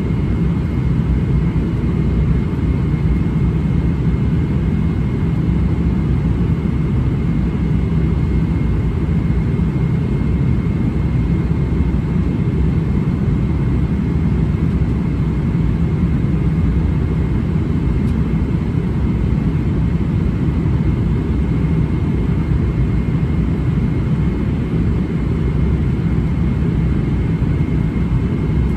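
Steady cabin noise of a Boeing 777-300ER in cruise: a constant low rumble of engines and airflow, with a faint high steady tone over it.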